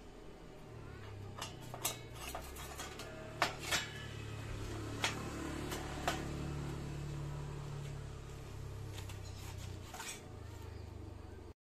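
Light metal clinks and knocks from parts being handled, scattered irregularly over a low steady hum; the audio cuts off near the end.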